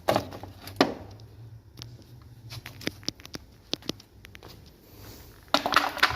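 Scattered sharp clicks and knocks, with a denser clatter in the last second, over a faint low steady hum.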